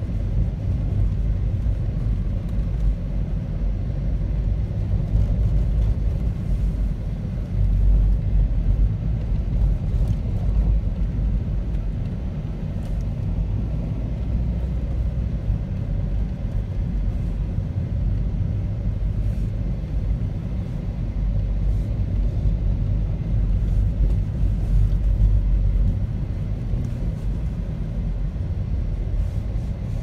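A car being driven on a snow-covered road, heard from inside the cabin: a steady low rumble of engine and tyres.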